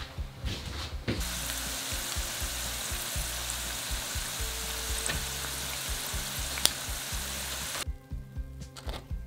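Hot oil sizzling steadily as shrimp-and-broad-bean toasts deep-fry in a pot at 170 °C, with a sharp pop about two-thirds through. The sizzle starts about a second in and cuts off suddenly near the end.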